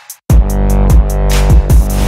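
Background electronic dance music with a heavy bass line and a steady beat, which cuts in after a brief silent gap at the very start.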